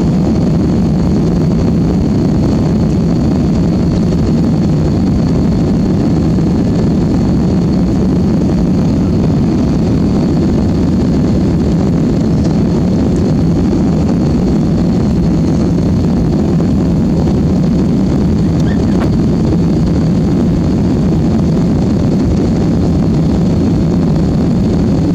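Steady, loud low rumble of a jet airliner's engines during takeoff and climb, with no clear rise or fall.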